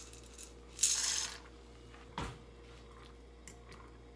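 Dry elbow macaroni poured from a measuring cup into a saucepan of boiling water: a short, loud rattling clatter about a second in, then a single knock on the pot and a few faint clinks as a fork stirs the pasta.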